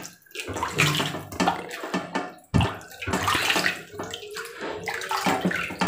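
A hand squeezing and kneading a ball of fresh homemade butter in a steel bowl of water, with irregular sloshing and splashing as the leftover buttermilk is washed out.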